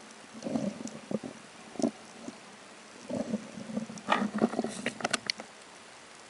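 Muffled underwater sound picked up through a camera's waterproof housing: irregular low thuds and knocks of moving water, with a brief cluster of sharp clicks about four seconds in.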